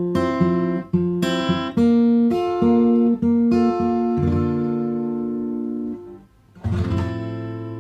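Background music on acoustic guitar: single plucked notes and chords in a slow melody. It pauses briefly about six seconds in, then a strummed chord rings out and fades.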